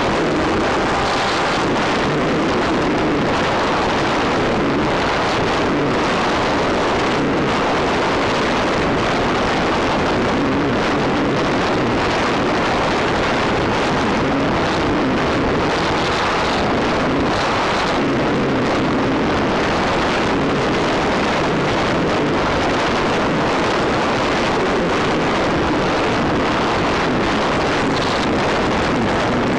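Steady rushing wind noise on an FPV model airplane's onboard microphone, unchanged as the plane glides and descends, with no clear motor tone.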